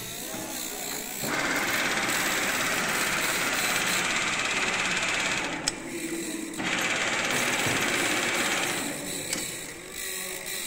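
The carriage of a 16K20 screw-cutting lathe moving under power along the bed, a steady mechanical running noise of the feed drive. It runs twice, with a short stop in between while the feed lever is shifted.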